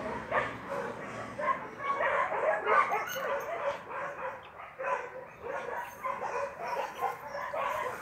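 Dogs yipping and barking in many short, high calls, several a second.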